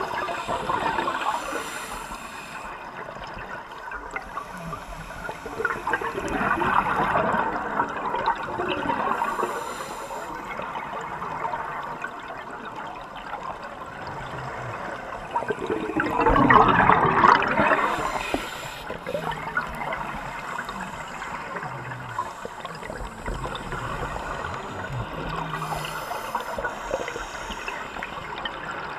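Scuba regulator exhaust bubbles heard underwater through the camera housing: a diver's exhalations gurgle out in bursts a couple of seconds long, roughly ten seconds apart, over a steady watery hiss.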